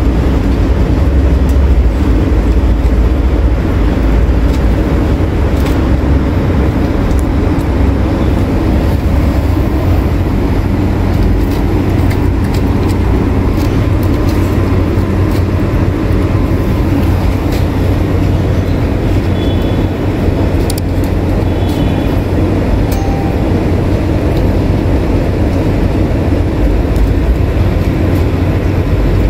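Loud, steady low mechanical rumble, such as street traffic or a nearby machine, with a few faint ticks on top.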